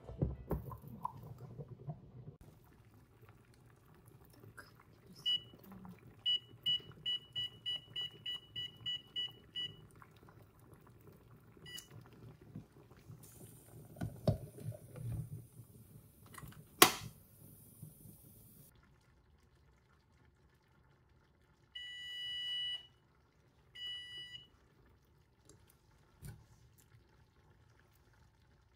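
Electric range's control panel beeping: a single beep, then a quick, even run of about a dozen beeps as the timer is set, and later a longer beep and a short one. Scattered clinks of the glass pot lid and pan, with one sharp clink in the middle that is the loudest sound.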